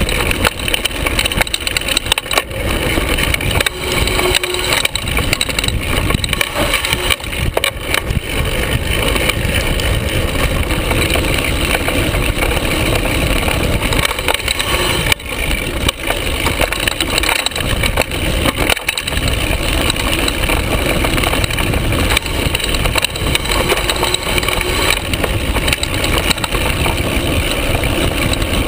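Carbon hardtail mountain bike going fast down rough singletrack, heard from a camera mounted low on the frame near the bottom bracket: a loud, continuous clatter of the frame and drivetrain over bumps, with the tyres crunching over dirt and rocks.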